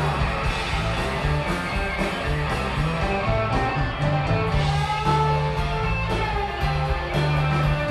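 Live blues-rock band playing: a Stratocaster-style electric guitar plays a lead line of sustained notes, one of them bent up and back down about five seconds in, over electric bass and drums.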